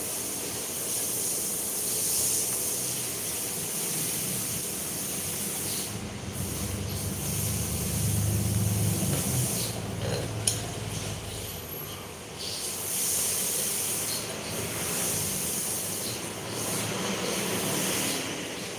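Steady background hiss, with a low rumble swelling through the middle and a single sharp tap about halfway through.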